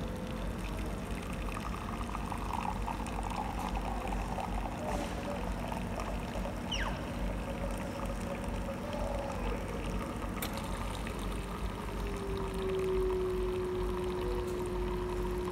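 Automatic coffee machine pouring coffee in two streams into a ceramic mug: liquid running into the cup over steady noise. About twelve seconds in, a steady tone from the machine sets in as the stream turns to clear hot water.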